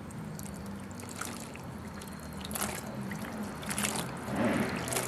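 Water trickling and splashing in a pot of hot water as a wax-covered batik shirt is worked in it to boil the wax out. Several short splashes come at irregular moments over a low steady hum.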